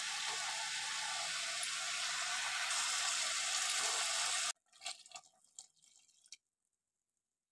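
Vegetables and spices sizzling in an aluminium pressure-cooker pan as ground masala paste and then liquid are poured in: a steady hiss that brightens about three seconds in. It cuts off suddenly after about four and a half seconds, leaving a few faint ticks.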